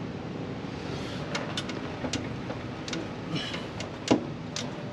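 Scattered sharp clicks and knocks of metal parts being handled as a steering wheel is fitted back onto its column, with one louder knock near the end, over a steady low hum.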